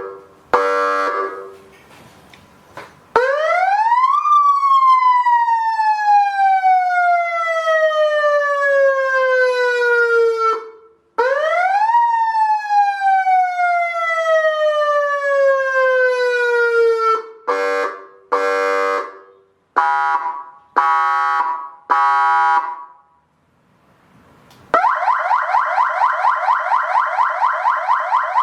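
A 200W electronic car siren loudspeaker stepping through its tones. A brief horn blast comes first. Then two wails each rise quickly and fall slowly over about six seconds, followed by five short horn blasts. Near the end a fast yelp starts, several sweeps a second.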